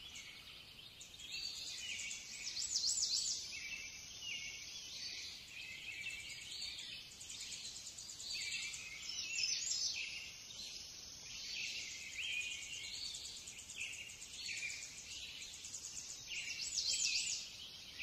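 Quiet, continuous high chirping and twittering of small songbirds, in a thin band with nothing low beneath it. The kneading itself is not heard.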